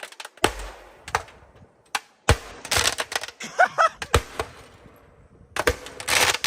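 Firework going off inside a closed refrigerator: an irregular string of sharp bangs and crackles, thickest near the middle and again near the end.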